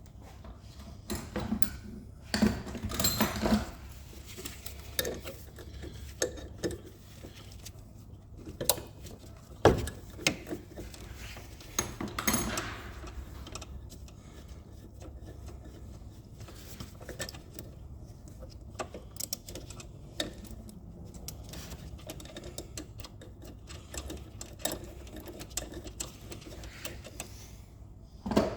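Hand tools working on metal engine fittings: scattered clinks, clicks and rattles of spanners and sockets as the fuel injector pipe unions and banjo bolts are undone, busiest in two spells near the start and about twelve seconds in.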